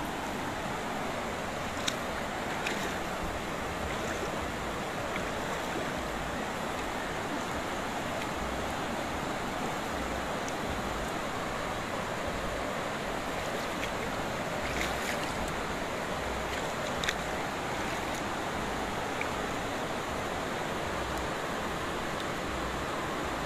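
Steady rain falling on a car and wet pavement, with a few light taps scattered through it.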